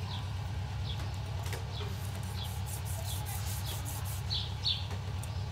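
Chef's knife sawing through crisp bacon-wrapped spring rolls on a wooden board, with a run of short crackles about three seconds in; the plain blade struggles, as a serrated knife would have cut more easily. Small birds chirp repeatedly in the background over a steady low hum.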